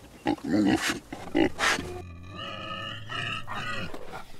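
Wild hog grunting and squealing in quick, sharp calls, then from about halfway a longer, held cry with a steady pitch that breaks off briefly twice.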